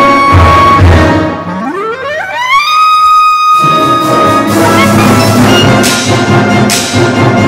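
Clarinet soloist playing two upward glissandos, each swooping from low up to a long held high note, over the orchestra. About halfway through the full orchestra comes in loud, with drums and crashes striking a few times near the end.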